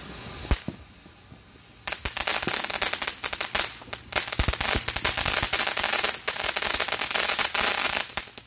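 Ground fountain firework: a hissing spray of sparks, a sharp pop about half a second in, then from about two seconds a loud, dense crackling that stops suddenly just before the end.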